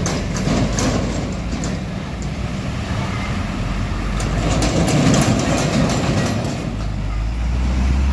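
Heavy trucks driving past, their engines a low steady drone, with a run of rattling clicks partway through and a deeper engine note coming up near the end.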